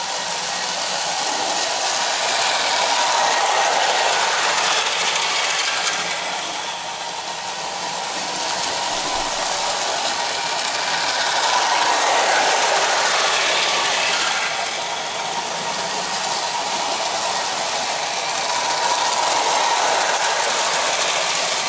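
1956 toy electric train running on its track: the motor and gears whir and the wheels rattle on the rails, growing louder and softer in turn about every eight seconds.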